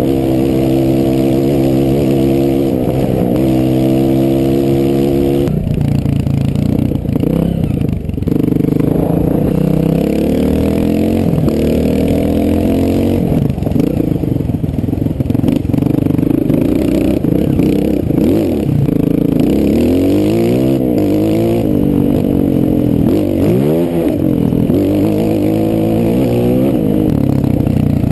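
Honda CRF 230 four-stroke single-cylinder trail bike engine heard from the rider's helmet. It pulls at a steady pitch for the first few seconds, changes pitch with a gear change, then goes through repeated rises and falls in revs near the end as the throttle is worked on a trail climb.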